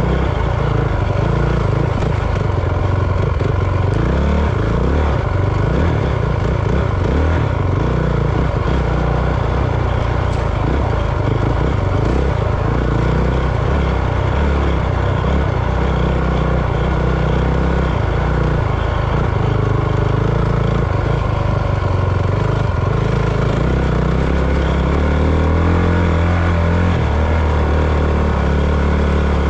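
A vehicle engine running continuously, its speed rising and falling.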